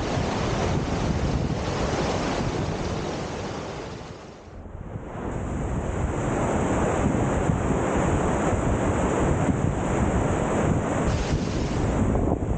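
Bleabeck Force waterfall rushing over rocks in a steady, dense roar of falling water, with wind buffeting the microphone. The sound dips briefly about four seconds in, then comes back at full strength.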